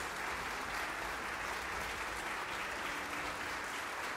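Concert-hall audience and orchestra players applauding, a dense, steady clapping that holds at an even level throughout.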